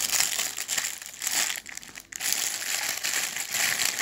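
Thin plastic packaging crinkling as it is handled and opened, irregular rustles with a short pause about two seconds in.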